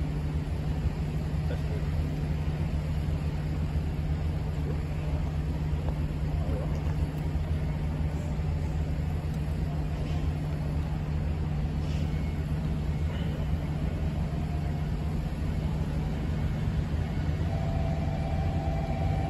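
Steady low mechanical hum with an unchanging pitch, with a faint higher tone coming in near the end.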